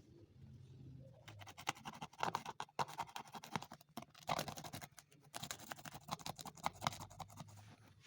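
Rapid scratching and scraping strokes, in three runs broken by short pauses.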